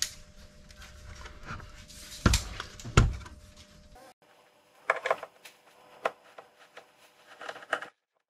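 Handling noise of a vintage receiver's metal chassis being turned over on a work mat, with two heavy knocks as it is set down. After about four seconds come small sharp clicks and scrapes of a screwdriver working the screws of its steel bottom cover.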